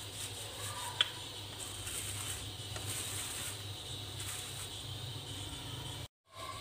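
Soft rustling of a plastic sheet as dough is rolled out under it with a wooden rolling pin and the sheet is then handled, over a steady low hum. One sharp click about a second in.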